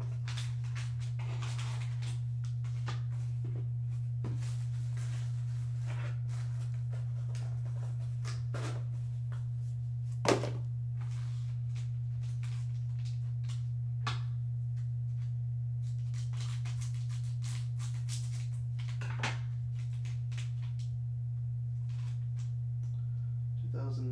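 A steady low hum, with the handling noise of a cardboard trading-card box and a foil pack being opened on top of it: light rustles and small clicks, and one sharper snap about ten seconds in.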